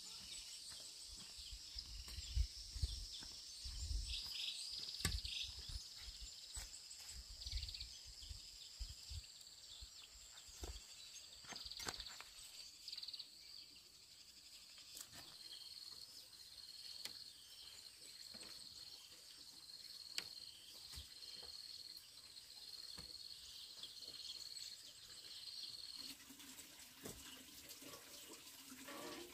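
Faint outdoor ambience with a steady high-pitched drone, broken by scattered soft thuds and light knocks of footsteps and a hoe in the first half.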